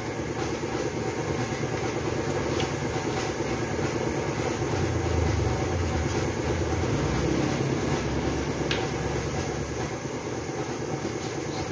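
Steady rushing hiss of compressed air blowing from the jets of an air carbon arc gouging torch with its air valve open, with a low rumble underneath.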